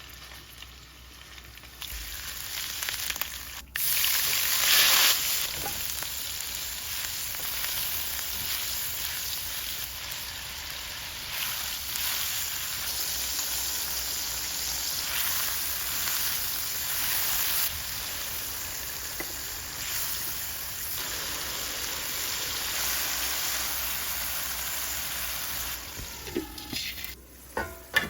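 Food frying in hot oil in a pan, a steady sizzle that steps up and down in level a few times, with a few sharp knocks near the end.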